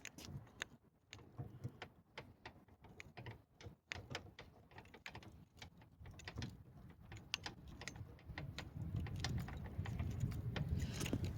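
Faint, irregular small clicks and rattles of hand tools working the door handle's 8 mm screw loose and taking out the broken handle piece, with a low rumble building near the end.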